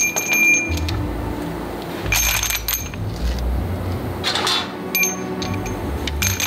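Steel bars clinking and ringing as they are handled and dropped into a plastic crate, in several separate clusters of clinks.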